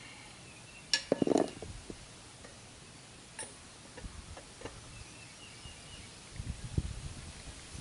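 Clicks, knocks and clunks as a jack is let down slowly and a motorcycle settles onto wooden blocking boards. The loudest rattle comes about a second in, with scattered ticks after and a few low thumps near the end. Faint bird chirps are in the background.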